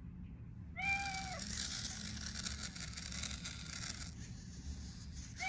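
MetaCat robot cat by Elephant Robotics playing a recorded meow from its speaker, one short call about a second in. A steady hiss-like noise follows for a few seconds.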